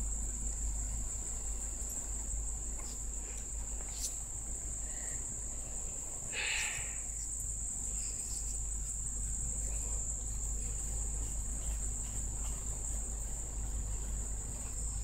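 Insects calling outdoors: a steady, unbroken high-pitched trill over a low rumble, with one short brighter sound about six seconds in.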